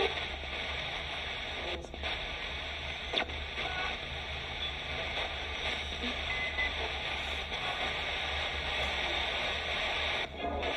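Roberts R9921 portable radio used as a spirit box, sweeping through the band: a steady hiss of radio static. The hiss drops out briefly about two seconds in and again near the end.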